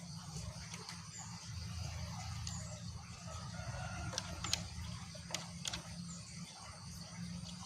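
Female green junglefowl giving a few short, sharp calls about midway, the lure call used to draw in males, over a steady high-pitched background drone.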